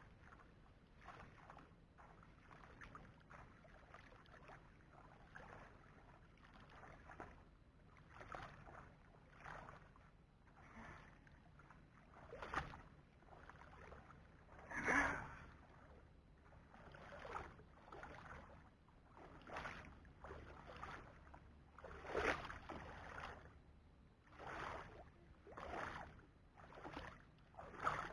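Water sloshing and splashing in repeated strokes, roughly one every second or two, with the loudest splash about halfway through.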